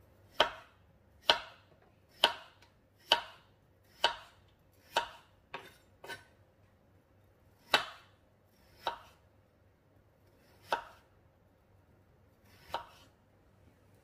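Kitchen knife slicing a peeled potato into rounds on a wooden cutting board, each cut ending in a sharp knock of the blade on the board. About a dozen cuts: roughly one a second at first, then slower and more unevenly spaced.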